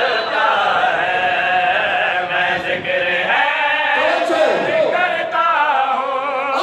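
Several men chanting together, a Shia devotional recitation (manqabat) in praise of Imam Ali as Haider, the voices held and wavering in pitch.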